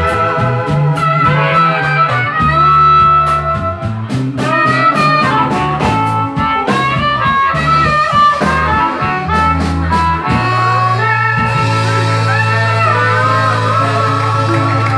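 Live blues band with harmonica, electric guitar, bass and drums playing a driving rhythm. About ten seconds in, the band lands on a long held closing chord under a wash of cymbals.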